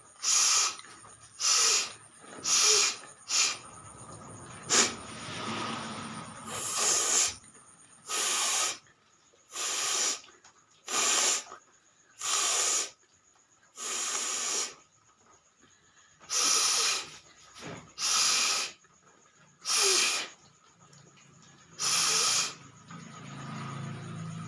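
A person making a series of about fifteen forceful breaths through the nose, loud and hissy, spaced roughly one to two seconds apart. Some are short and sharp, others drawn out for about a second.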